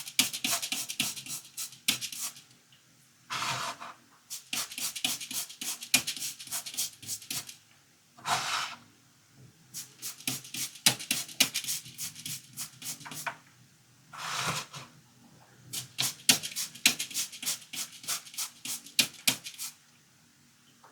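Scrubbing on a dirty plastic toy car, in runs of quick rasping strokes broken by short pauses, with three short hissing bursts in between.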